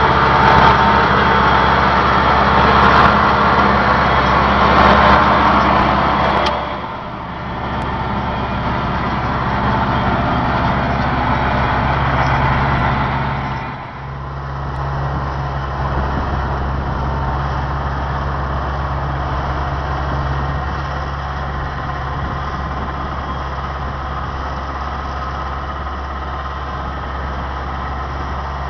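Tractor engine running steadily under load while pulling a potato planter and a PTO-driven rotary tiller, with a low, even hum and machinery noise. The sound is louder and harsher for the first six seconds or so, then shifts abruptly about 7 and 14 seconds in to a steadier, quieter engine hum.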